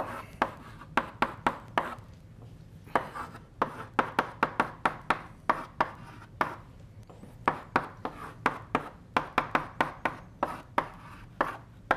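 Chalk writing on a blackboard: quick sharp taps and short scratchy strokes in irregular runs, with brief pauses between groups.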